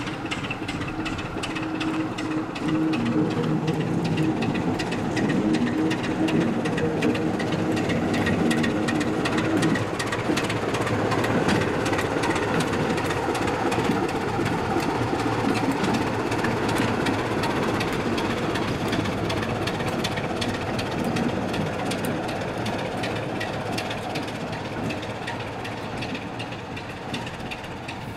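Class 27 diesel locomotive's Sulzer six-cylinder engine working as the locomotive pulls past at low speed. The engine's drone rises over the first few seconds and fades slowly as it draws away.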